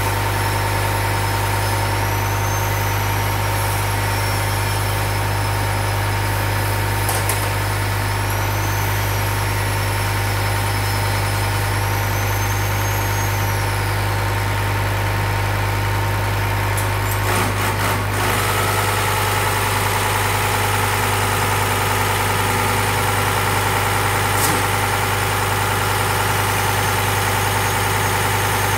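Diesel fuel injection pump being driven on a test bench for calibration, running with a steady mechanical hum and a faint high whine that rises and falls every few seconds. A few clicks come about 17 seconds in, after which the hum turns louder in its middle range.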